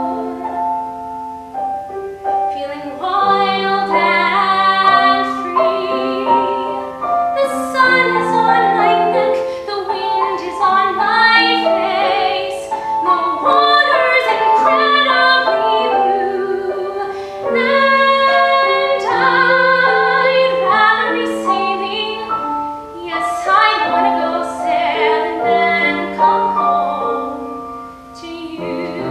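A woman singing a musical-theatre song in a trained, classical style, with vibrato on long held notes, accompanied by a grand piano.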